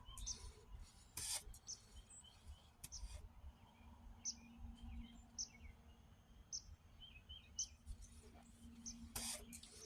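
Faint bird chirps: short high notes repeating roughly once a second, with a faint steady low hum and a couple of soft clicks, one about a second in and one near the end.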